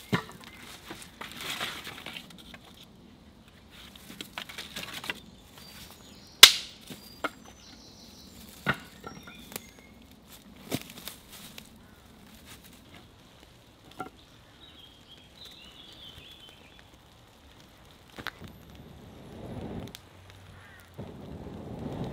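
Dry wooden sticks snapping with sharp, separate cracks, the loudest about six seconds in, between stretches of rustling as branches are handled and pulled from a pile of brush.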